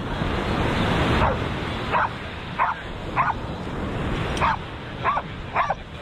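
A small dog yipping: about seven short, high yelps at irregular intervals of half a second to a second. They sit over the steady wash of surf breaking on the beach.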